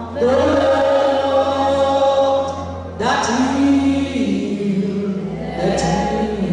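Voices singing a slow gospel worship song in long held phrases, a new phrase starting about three seconds in, over a steady low hum.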